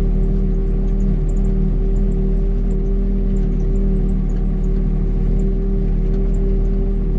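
Tractor engine running at a steady speed, a constant low drone with an even hum.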